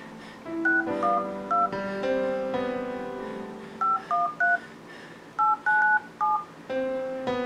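Touch-tone keypad beeps from a mobile phone as a ten-digit number is dialled, each beep a short two-note tone, in three groups: three, three, then four.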